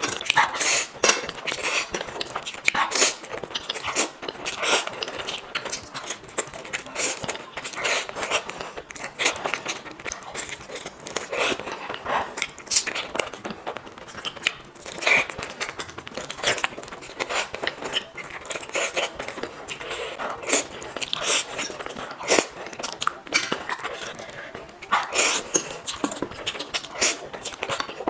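Close-miked eating: a steady run of crunchy bites and chewing, many short sharp crunches in irregular succession.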